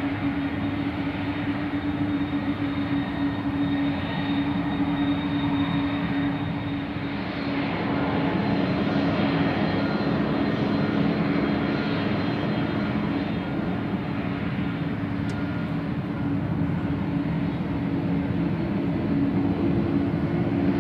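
Jet airliner turbofan engines running at taxi power: a steady roar with a strong low hum. Near the end one tone begins to rise in pitch.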